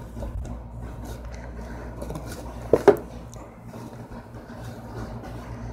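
Cotton T-shirt being unfolded and spread out by hand: soft cloth rustling with a few light ticks, and two quick knocks close together about three seconds in.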